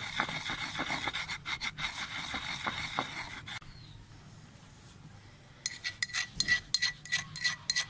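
A utensil rubbing and scraping ground ajwain and rock salt powder around in a vessel. Scratchy strokes come first, then a quieter stretch. Near the end there is a quick run of scrapes with a faint ringing from the vessel.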